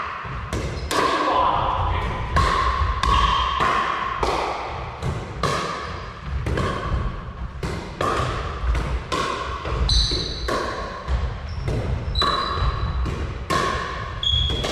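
Pickleball paddles striking the hard plastic ball in a fast rally, sharp pops about twice a second, each with a short ringing tone and echo from a large hall. A few short high squeaks from shoes on the wooden floor come in during the second half.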